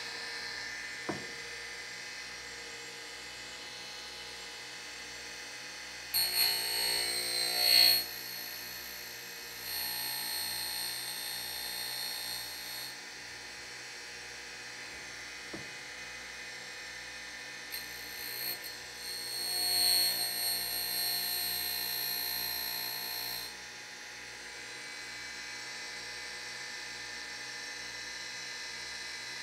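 Surface grinder wheel spinning with a steady hum while an end mill's flute is ground in a Weldon sharpening jig, a thousandth deeper. Twice, about six and about eighteen seconds in, the flute is drawn across the wheel edge and a louder, high-pitched grinding rings out for several seconds; a couple of light clicks come between.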